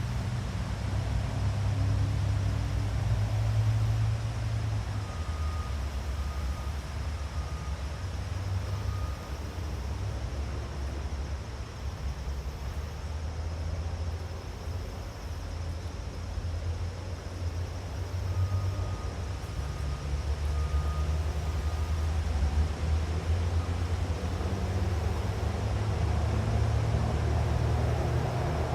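A steady low rumble that shifts slowly in pitch, with two short runs of faint, thin high peeps partway through.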